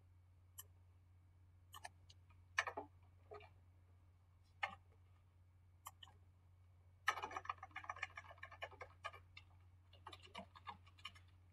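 Faint computer keyboard keystrokes: a few scattered clicks, then a quick run of keystrokes starting about seven seconds in, over a low steady hum.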